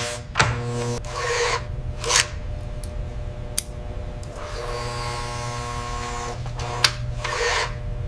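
Hand tools working on metal mechanical parts: short scraping and ratcheting bursts and sharp clicks over a steady electric motor hum. The hum breaks off about a second in and comes back after the middle.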